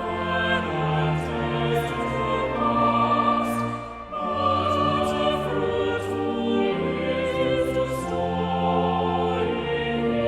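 Choir singing a hymn in sustained parts over a moving bass line, with a brief break about four seconds in between phrases.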